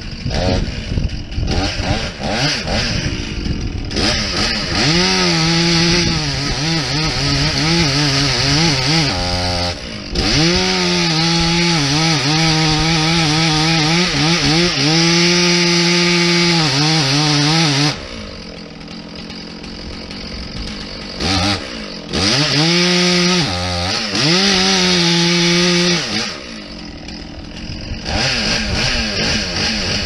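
Chainsaw cutting into a tree trunk: the engine revs up and is held at full throttle for several seconds at a time, drops back to a lower idle about 18 seconds in and again near the end, with short blips of the throttle between cuts.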